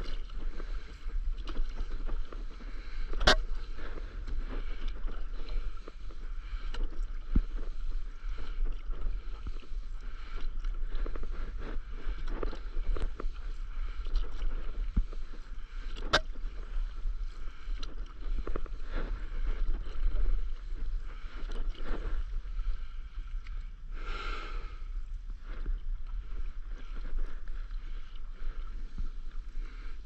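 Paddle strokes from a stand-up paddleboard on calm water: the blade dipping and pulling, with water swishing and dripping off it in an uneven rhythm. A couple of sharp clicks stand out, one about three seconds in and another midway.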